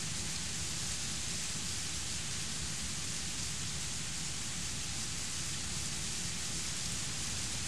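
Heavy thunderstorm rain pouring steadily, a dense even hiss with a steady low rumble beneath it.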